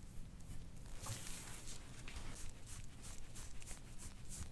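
Rapid, even rubbing strokes over the skin of the back, about four a second, starting about a second in with a longer swish. This is soft-tissue work on a swollen upper back that is turning red.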